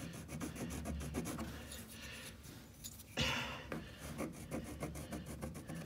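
Carpenter's pencil scratching a mark onto the side of a translucent plastic tank at its liquid line: a run of short, scratchy strokes, with a louder rub about three seconds in.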